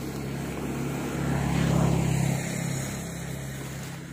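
A motor vehicle's engine running with a steady low hum that grows louder to a peak about two seconds in and then fades away.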